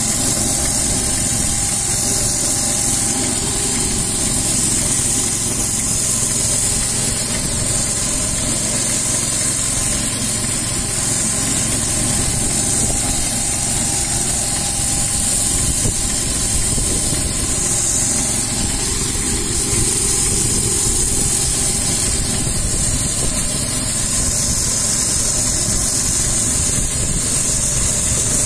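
Walk-behind spray road-marking machine running steadily: a small engine's rumble and hum under a loud, constant hiss of water-based paint spraying from its twin nozzles as it lays a double line.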